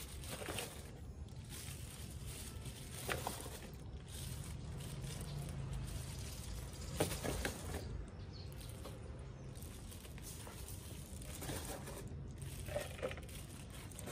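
Quiet outdoor background: a steady low rumble with a few faint, short clicks or rustles.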